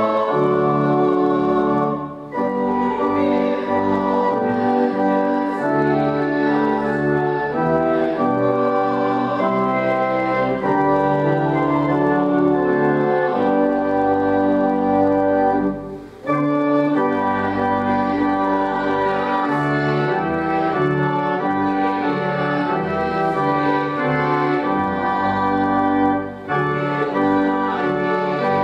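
Church organ playing a hymn in sustained chords, breaking off briefly three times between phrases.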